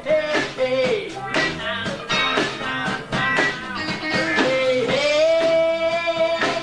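Live rock band playing, with drums, electric guitars and bass. A long held melody note bends down and back up over a steady drum beat.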